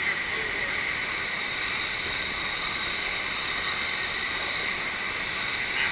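Steady rush of water pumped over a FlowRider-style sheet-wave ride, running evenly throughout.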